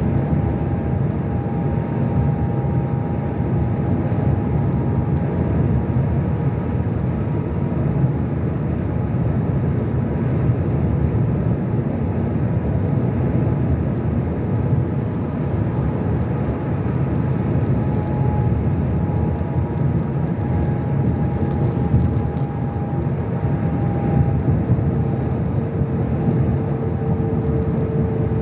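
Steady road and engine noise of a car cruising at motorway speed, a dense low rumble of tyres on the road. A faint steady whine comes in near the end.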